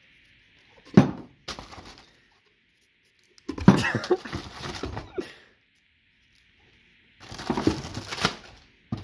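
Handling noise from unpacking metal soup cans: a single knock about a second in, as of a can set down on a wooden table, then two stretches of crinkling and rustling plastic air-pillow packing and cardboard as cans are pulled from a shipping box.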